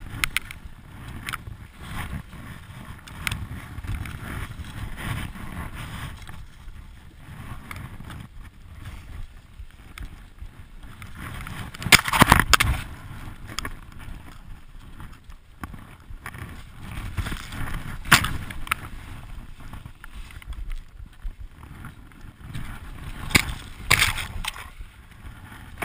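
Skis sliding and hissing through soft snow on a tree run, with a steady rumble of air on the head-mounted camera's microphone. Several loud swishes and scrapes of snowy conifer branches brushing across the camera, the loudest about halfway through and more near the end.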